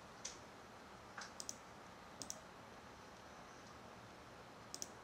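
Quiet room tone broken by a handful of small, sharp clicks, several of them in quick pairs.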